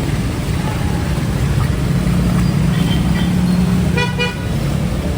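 Road traffic with vehicle engines running in a steady low rumble, and a short vehicle horn toot about four seconds in.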